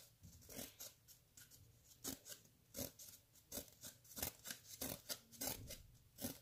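Small scissors snipping slits into a cardboard toilet paper roll: a string of quiet, short snips at an uneven pace, about one or two a second.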